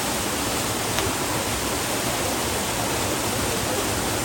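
Waterfall rushing: a steady, even wash of falling water with no change in level, and a faint brief tick about a second in.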